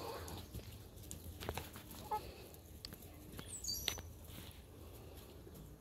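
Backyard hens pecking at chopped vegetables on wood-chip litter: scattered soft taps and patter, a brief quiet chicken call about two seconds in, and a short high chirp falling in pitch near four seconds.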